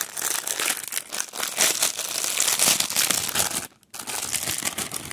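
Clear plastic packaging bag crinkling and crackling as hands squeeze and open it, with a short break a little under four seconds in before the crinkling resumes.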